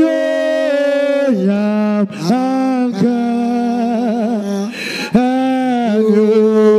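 A man singing a worship song solo in long held notes with vibrato, taking short breaths between phrases.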